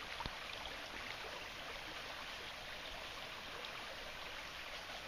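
Faint, steady rush of a small stony river flowing.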